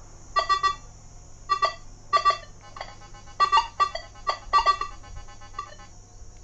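Nokta Makro Legend multi-frequency metal detector giving a string of short electronic beeps in irregular bursts, its sensitivity turned up to 30. The owner puts its unsettled response down to the steel in the floor slab beneath it.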